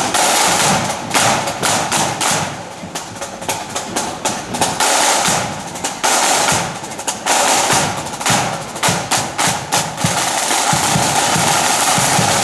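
Marching flute band's drum corps playing snare drums and bass drum in a dense, continuous rolling beat.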